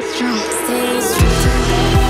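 Background music: a rising sweep, then deep bass and a drum beat come in a little past a second in.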